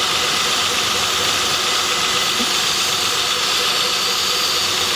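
2007 Honda Odyssey's V6 engine idling with a steady high-pitched buzz over a hiss, a buzz the mechanic traces to a failing power steering pump.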